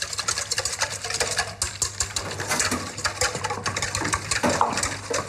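Wire whisk beating zabaione (egg yolks, sugar and white wine) in a stainless steel bowl over a water bath: a fast, continuous clicking and scraping of the wires against the metal bowl.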